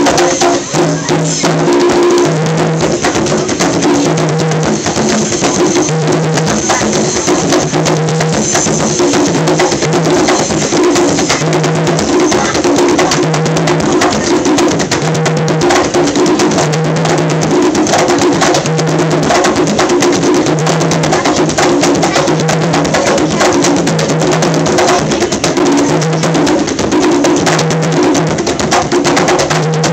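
Several conga drums played by hand in a fast, steady, loud rhythm, low and higher drum tones alternating in a repeating pattern.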